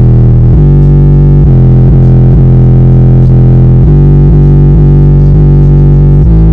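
Bass-heavy music played very loud through a car audio system with two inverted 15-inch Obsidian V1 subwoofers in a ported box, the recording pinned at full level.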